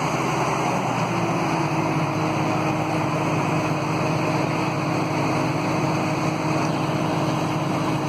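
An engine running steadily at a constant speed, with a steady hum that enters about a second in.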